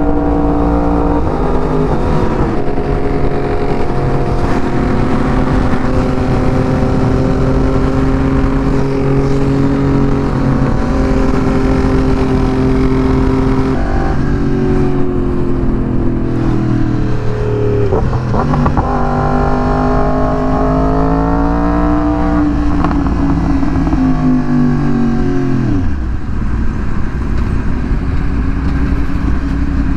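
Yamaha R1 inline-four engine running at road speed with a broken connecting-rod bearing, over wind rumble. The note holds steady, rises in revs about two-thirds of the way through, then drops away near the end.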